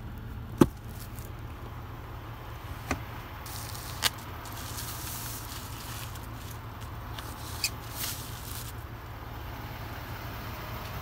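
Handling noise from a hand moving over the truck's interior trim and seats: a few sharp clicks, the loudest about half a second in, and a rustle through the middle, over a steady low hum.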